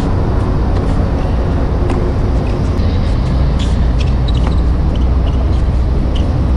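Tennis rally: a few sharp racquet-on-ball strikes, the clearest about three and a half to four seconds in, over a steady low rumble.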